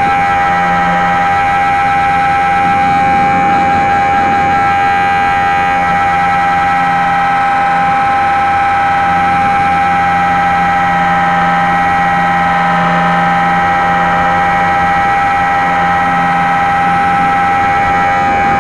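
HobbyZone Super Cub's electric motor and propeller running steadily in flight, picked up by a camera mounted under the wing: a loud, even whine with one strong held tone.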